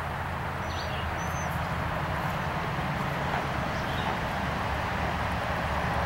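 Outdoor ambience: a steady low hum and hiss, with a few short bird chirps about a second in.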